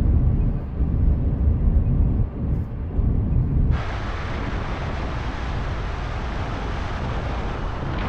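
A car driving at highway speed, heard from inside: a low rumble of engine and road. About four seconds in, a loud steady rush of wind and tyre noise comes in suddenly and holds.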